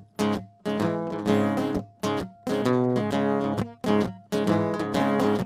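Guitar strumming chords live in a stop-start rhythm, each chord held about a second and then cut off short: the intro of a rock song before the vocal comes in.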